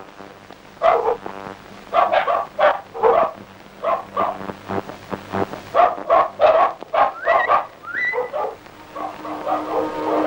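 Dog barking repeatedly in short, sharp barks, with a couple of higher rising yelps about seven to eight seconds in.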